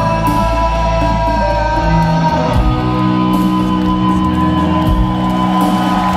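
Live rock band playing slow, sustained chords on electric guitars and bass, the chords ringing out with a change in the low notes about two and a half seconds in.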